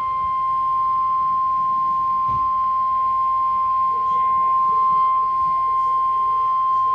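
NOAA Weather Radio 1050 Hz warning alarm tone: one steady, unbroken high beep held for several seconds. It is the attention signal that comes before a broadcast flash flood warning.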